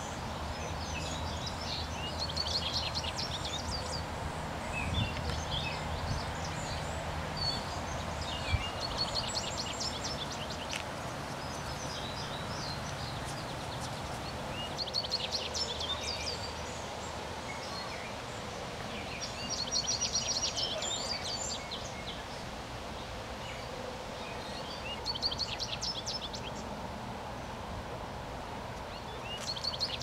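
A songbird singing short, rapid, high-pitched phrases, repeated every few seconds, over a steady outdoor background hiss. One sharp click about a third of the way through.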